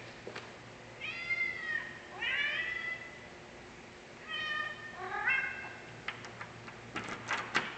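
A hungry house cat meowing insistently for its dinner: four drawn-out meows, one after another. About seven seconds in, keys jingle and click into a door's deadbolt lock.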